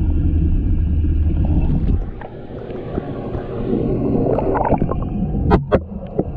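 Water in a large aquarium heard through a submerged camera. A steady low rumble of moving water cuts away about two seconds in, and gurgling and sloshing with scattered clicks follow. Two sharp clicks come near the end.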